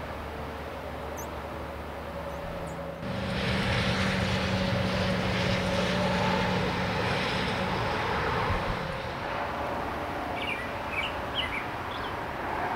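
Highway traffic going by: a steady rush of tyres and engines with a low hum, louder from about three seconds in and easing off after about eight seconds. A few short bird chirps near the end.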